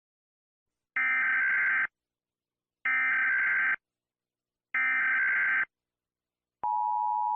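Emergency Alert System SAME header: three identical bursts of buzzy digital data tones, each just under a second long, then the steady EAS attention tone, which begins near the end and marks the start of an alert.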